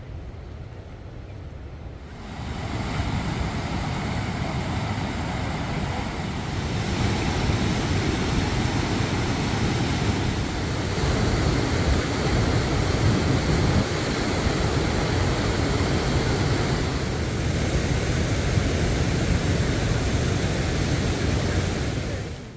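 Fast mountain river rushing over rocks: a steady whitewater rush that grows louder about two seconds in and again at about seven seconds, then holds level.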